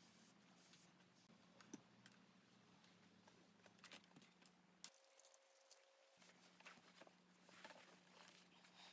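Very faint rustles and small clicks of heavy canvas being handled and hand-stitched, over a low steady hum.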